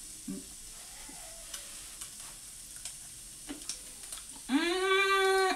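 Faint sizzling and crackling from a hot skillet of crab meat in butter, with a few light clicks of a spoon. Near the end a woman hums a loud, drawn-out 'mmm' of enjoyment at the taste, held for about a second.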